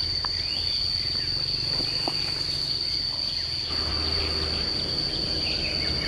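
Steady, unbroken high-pitched insect trill, cricket-like, over a low background hum.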